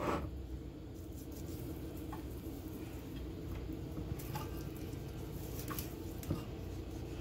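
Faint handling sounds of hands rubbing dry seasoning onto raw fish steaks, with a few light taps scattered through, over a steady low hum.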